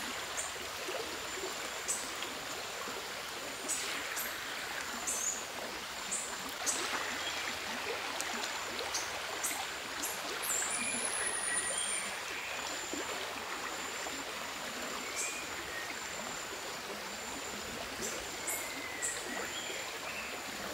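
Forest stream running steadily, with a continuous high-pitched insect tone and scattered short, high chirps.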